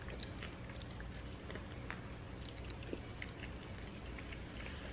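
Someone chewing a mouthful of sandwich: faint, scattered wet mouth clicks over a low steady room hum.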